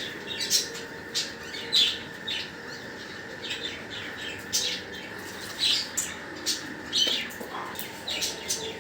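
Short, high-pitched animal chirps repeated irregularly, roughly one or two a second, over a faint steady hum.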